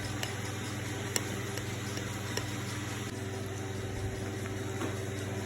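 Steady low machine hum running evenly throughout, with a couple of faint clicks about a second and two and a half seconds in.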